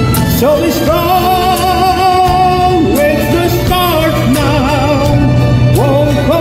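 Singing over a karaoke backing track: a solo voice holding long notes with vibrato, sliding up into several of them.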